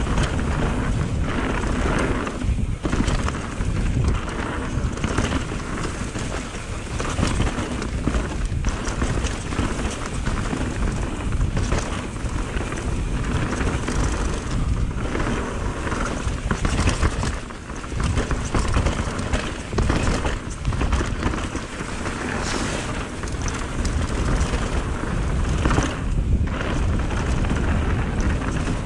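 Mountain bike riding fast down a dirt and gravel trail: wind rushing over the camera microphone, tyres rolling on dirt, and the bike knocking and rattling over bumps.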